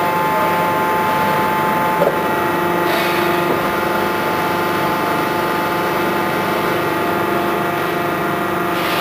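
Hydraulic pump of a CLR 800 CNC tube bender running steadily, a hum made of several steady tones. Its pitch shifts about two and three seconds in as the machine's bend head moves, with a short click near the first shift.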